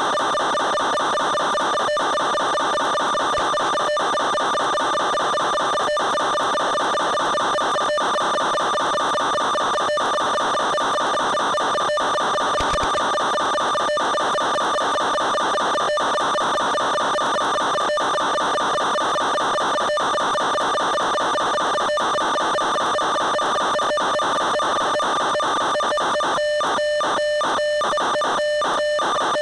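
A steady electronic buzz at one fixed pitch that never changes, broken by brief dropouts about every two seconds and by a rapid run of flickering dropouts near the end.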